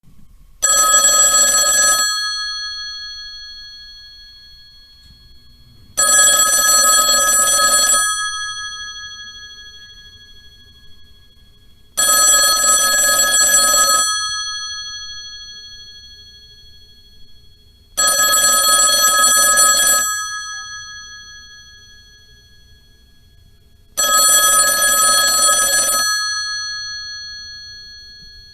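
Old telephone bell ringing in a steady cadence: five rings about two seconds long, one every six seconds. Each ring fades out slowly over the following seconds.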